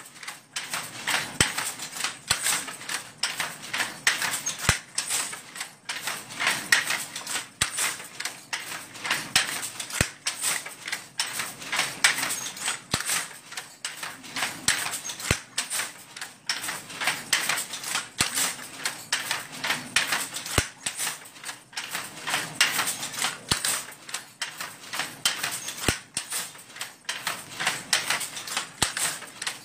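Wooden handloom being worked by hand: a steady clatter of rapid clicks and knocks from the beater and shuttle as silk cloth is woven.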